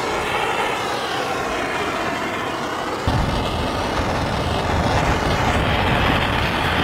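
Hand-held propane torch burning with a steady hissing roar as its flame is played back and forth over a car's dipped panel. The sound gets fuller and deeper about three seconds in.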